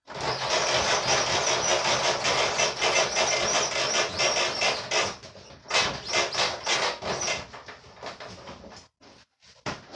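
Red air hose being pulled out from a wall-mounted hose reel: a steady, rapid clicking rattle for about five seconds, then in short spurts as the pulling stops and starts.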